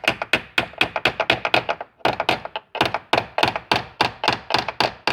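Quick, repeated light taps of a tool driving the Fiat Palio's door-check bolt back into its hole, about five or six sharp knocks a second with two short pauses midway. The bolt is being seated through a plastic shim cut from a soda bottle that takes up the play that made the door creak.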